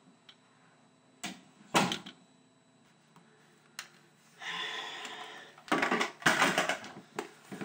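A door clicks and shuts with a sharp knock, then a few seconds later comes rustling and a quick run of loud clacks.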